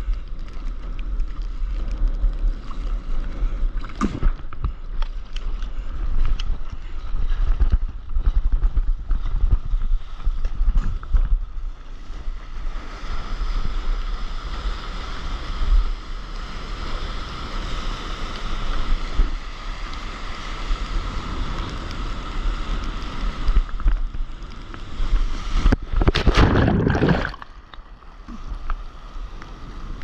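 Sea water splashing and sloshing around a surfboard, with wind buffeting the microphone. About 26 seconds in, a loud rush of breaking whitewater lasts a second or so.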